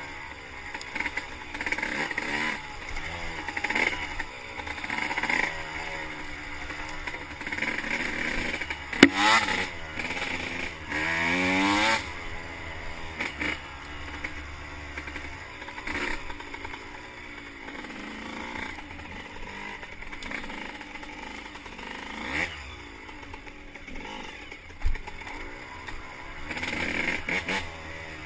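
2006 Suzuki RM125 two-stroke single-cylinder engine, heard from a helmet camera, revving up and dropping off over and over as the bike is ridden down a rough trail, with rattling from the bike. About nine seconds in there is a sharp knock, and the revs climb hard twice over the next few seconds.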